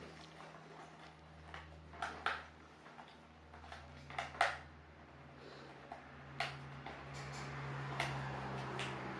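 Scattered sharp clicks and taps, a Quaker parrot's beak working at something that it is trying to open, over a low steady hum.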